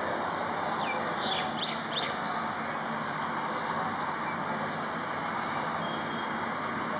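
Steady hum of distant road traffic, with a quick run of four or five short, high, sliding bird chirps about one to two seconds in.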